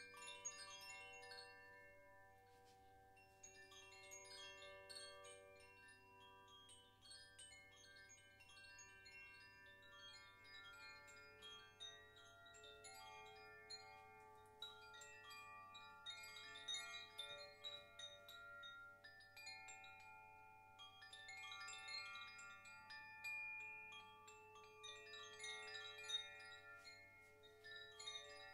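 Faint metal chimes ringing, with clusters of light strikes every few seconds and many overlapping tones sustaining between them, over a steady low hum.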